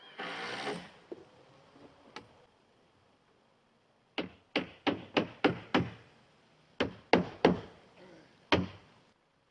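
Hammer striking a nail into wood framing in quick runs: six blows at about three a second, then three more, then a single last blow near the end. A short burst of rasping noise comes at the very start.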